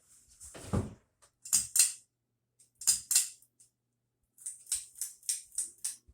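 Polished brass Harbor Breeze Armitage hugger ceiling fan running on medium speed with a faint steady low hum. Irregular short rustling and clicking noises sound over it, with a quick run of them near the end.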